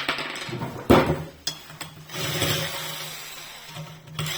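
Cordless drill-driver with a 10 mm socket running, unscrewing the bolts that hold the sewage pump's base stand. There are two sharp knocks in the first second, then a steady motor hum that swells and fades.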